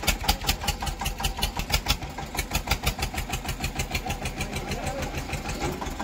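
Eicher 241 tractor's diesel engine chugging under load with a fast, even thump about seven times a second, as it tries to pull its stuck, loaded trolley.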